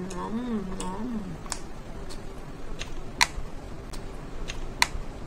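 A woman's closed-mouth "mmm" hum of enjoyment while eating, wavering up and down in pitch and ending about a second and a half in. After it come a handful of sharp, separate clicks, two of them louder than the rest.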